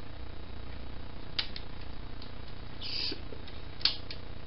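Light clicks and one short scrape from small plastic and metal parts of an opened PlayStation console being handled with a screwdriver, over a steady low hum. The sharpest click comes about four seconds in.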